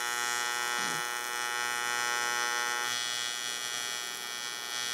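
TIG welder arc on a cast aluminium lever, a steady electric buzzing hum with no breaks, getting brighter and harsher about three seconds in.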